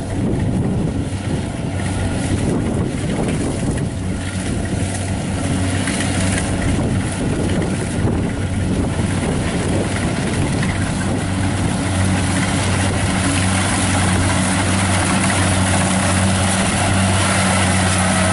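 Kubota 70 rice combine harvester running steadily as it cuts and threshes rice, a steady diesel engine hum with the rattle and rush of the cutter and thresher over it, growing slightly louder as the machine comes closer.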